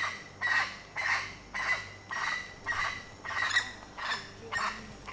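Black spider monkey giving its alarm call: a run of short, rough barks, about two a second, the call spider monkeys make when frightened.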